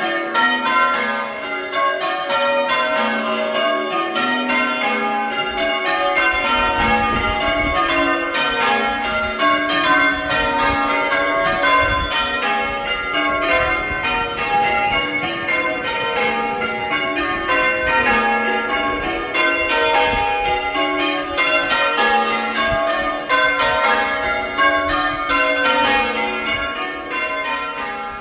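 Church tower bells rung in changes at bell-ringing practice: many bells struck one after another in a steady, unbroken rhythm. A low rumble runs beneath the bells from about six seconds in until about twenty-two seconds.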